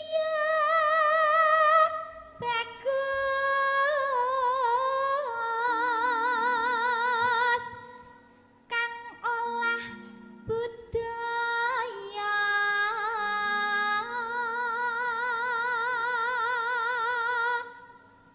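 A Javanese pesinden (female gamelan singer) sings a bawa, the near-solo, free-rhythm vocal prelude to a gamelan piece. Her notes are long and held with a wide, slow vibrato, in phrases broken by short pauses about two seconds in and about eight seconds in, over faint low notes stepping in pitch.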